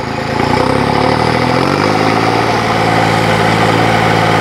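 New Holland 5620 tractor's three-cylinder diesel engine revving up over about two seconds, then holding a steady working speed. The throttle is being opened to about 2000 rpm to pull a cultivator in first high gear.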